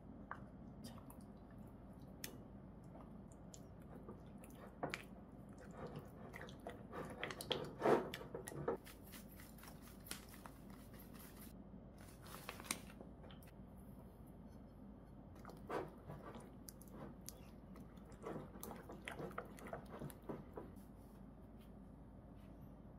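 Faint kitchen prep sounds: a spatula stirring and scraping a thick cream cheese and Greek yogurt mixture in a bowl, with scattered clicks and taps and a few short rustles. The loudest knocks come about eight seconds in.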